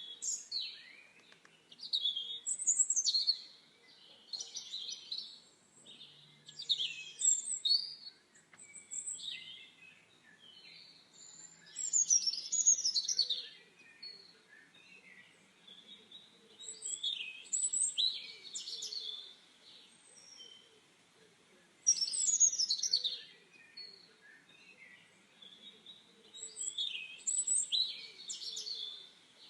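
Birds singing: quick, high, warbled phrases that come every few seconds, over faint steady background noise.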